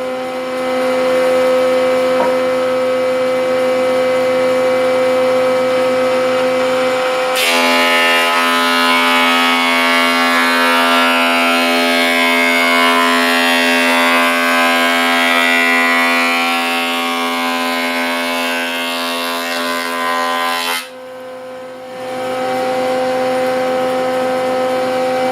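Electric wood planer running with a steady whine. About seven seconds in it starts cutting the board, adding a loud rush of shaving wood that stops about twenty-one seconds in, leaving the motor whining on.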